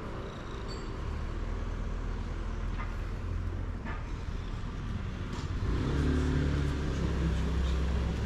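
Road traffic: a motor vehicle's engine running close by, low and steady, growing louder from about six seconds in, with a couple of faint clicks.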